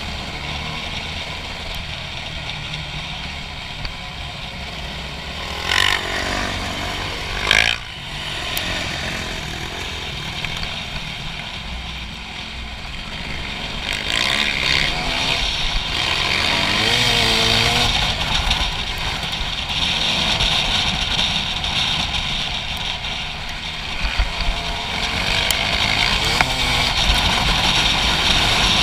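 Dirt bike engine under way, its note rising and falling as the rider accelerates and brakes. Two sharp rev blips come about six and seven and a half seconds in, and it runs louder from about halfway on.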